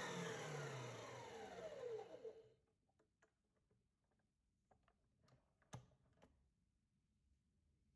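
Stand mixer's motor and wire whisk spinning down after being switched off at the end of whipping egg whites to peaks: a falling whine that dies away about two and a half seconds in. Then a few faint clicks as the mixer head is lifted.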